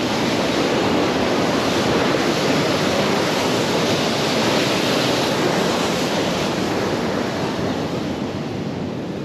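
Loud, steady rushing of wind and water, swelling a little in the middle and easing near the end.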